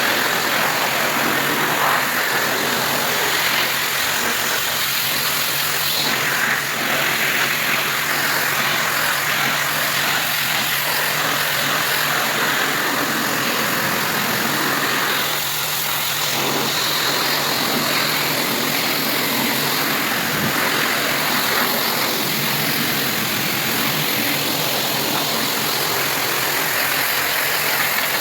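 Pressure washer running steadily: a continuous engine hum under the loud hiss of its high-pressure water spray on a roof.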